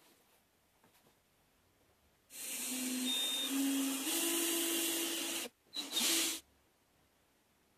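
Cordless drill boring into plywood. The drill starts about two seconds in and runs for about three seconds, its motor pitch stepping up, then stops briefly and runs again for under a second.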